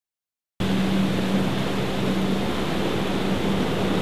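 Silence, then about half a second in a personal watercraft's engine is heard running at a steady pitch over rushing, churning white water.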